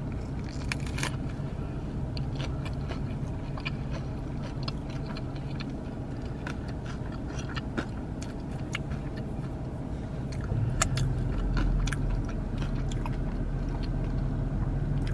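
Close-up biting and chewing of a crispy chicken sandwich topped with crunchy corn nuts. Many small sharp crunches run through the chewing over a low steady hum.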